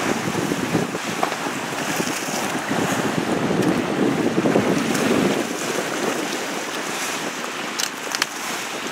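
Cold wind buffeting the microphone in uneven gusts, strongest around the middle, with lake waves washing in the background. A couple of faint clicks come near the end.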